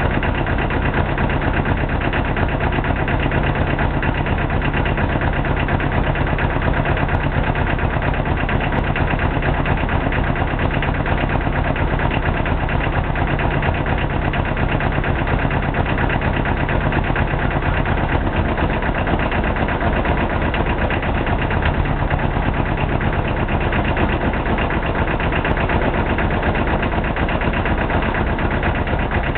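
McCormick Farmall tractor engine, built in the 1950s, running steadily with an even, rapid firing beat.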